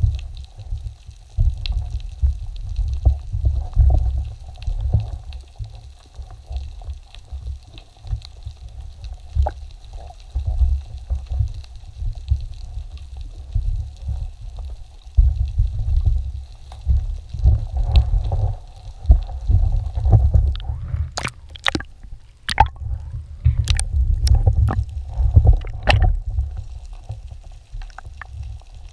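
Underwater camera audio: a low, churning rumble of water moving against the camera housing as the diver swims. Several sharp clicks come in a cluster about three quarters of the way through.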